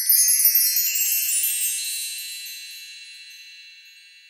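Chime sound effect for a logo intro: a quick cascade of high, bell-like tinkles that settles into ringing tones and fades away toward the end.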